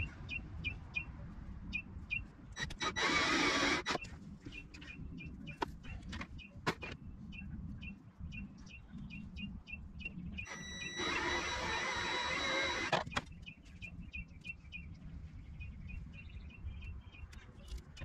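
Benchtop wire-stripping machine running scrap wire through its blade in two whirring, squealing bursts, one of about a second and one of about two seconds. Between them a bird chirps steadily, about four short chirps a second.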